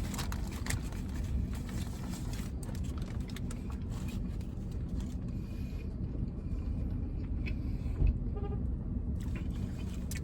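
Steady low rumble of a vehicle, as if heard from inside it, with a few faint clicks.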